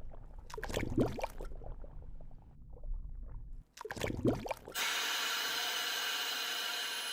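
Water splashing and bubbling in two short spells, the second about four seconds in. Then, about five seconds in, a steady bed of background music starts.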